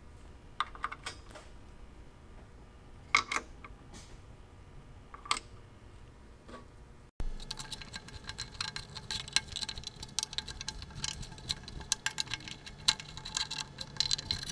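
Brass saw screws being fitted into a wooden hand-saw handle: a few scattered clicks, then, about halfway through, rapid scraping clicks of a screwdriver tip turning in the screw slots as the screws are tightened.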